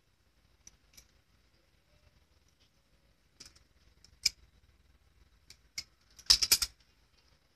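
Bangles on a wrist clinking: scattered single clicks, then a quick jangle of several together near the end, the loudest sound.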